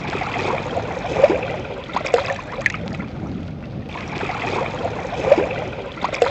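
Water lapping and splashing, with small splashes scattered over a steady wash. The same few seconds of splashes repeat about every four seconds.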